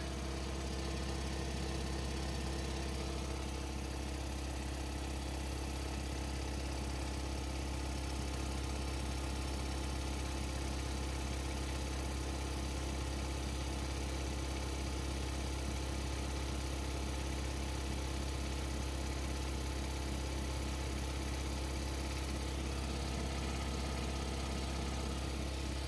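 Husky Pro upright air compressor running steadily, its electric motor driving the cast-iron pump as it builds tank pressure toward 100 psi.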